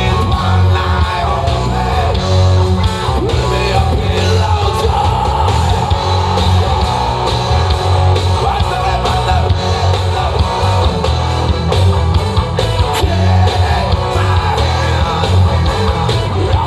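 Rock band playing loud and live, with electric guitar, bass, drums and a singer's voice. The heavy bass pulses steadily.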